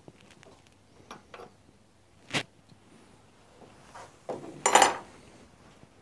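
Metal hand tools and lathe fittings being handled: a few light clinks and taps, a sharp click about two and a half seconds in, and a louder metallic clatter with a brief ring near the five-second mark. The lathe is not running.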